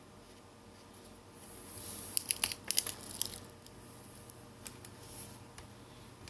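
Pick prying under the heated, already cracked LCD and glass of a Samsung Galaxy J5: a scraping run with a cluster of sharp crackling snaps about two to three seconds in, then a few faint ticks.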